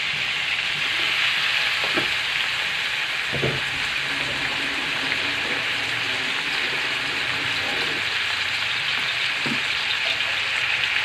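Marinated beef chunks sizzling steadily as they sauté in hot oil in a large metal wok, with a metal spatula scraping the pan a few times.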